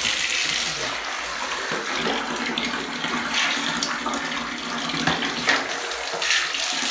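Water running steadily into a bathtub from the tap or shower, with a few brief sharper sounds near the end.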